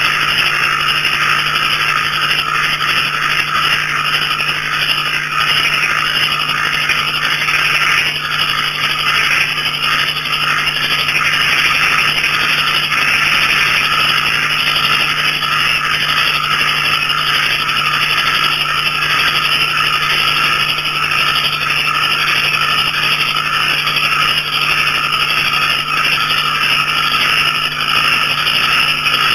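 Dense night chorus of small frogs and crickets calling without a break: a busy, rapidly pulsing frog chorus with steady high cricket trills above it and a steady low drone underneath.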